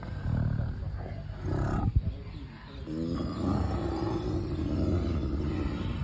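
Elephant calf's deep rumble call, in two stretches: a short one at the start and a longer, steadier one from about halfway on. A single sharp knock about two seconds in.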